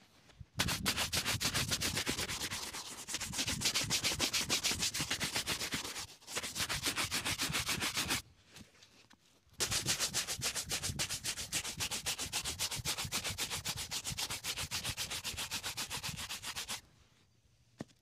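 A bristle shoe brush scrubbing rapidly back and forth over a black leather boot, several fast strokes a second, buffing the polish. The brushing stops briefly about eight seconds in, then resumes and stops again about a second before the end.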